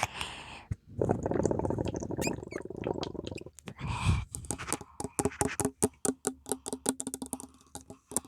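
Close-miked scratching and rubbing on an object, then a run of quick sharp taps, several a second, in the second half.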